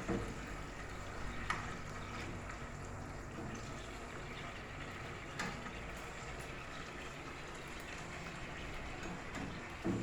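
Brown stew fish sauce simmering in the pan, a steady bubbling hiss, with a few light knocks.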